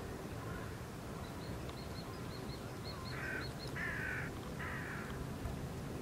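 A crow cawing three times in quick succession, harsh calls about three seconds in, with a small bird's high, thin chirps repeating about three times a second before and under them.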